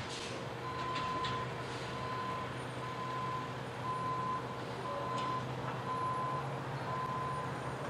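Front-loader garbage truck backing up, its reversing alarm beeping steadily a little more than once a second over the running diesel engine.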